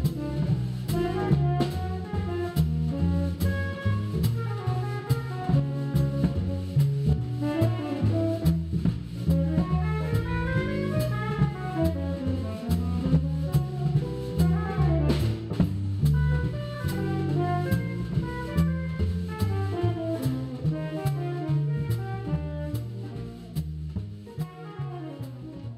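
Jazz quartet music with saxophone, guitar, bass and drum kit, the drums keeping a steady cymbal beat under a saxophone melody. The music fades out near the end.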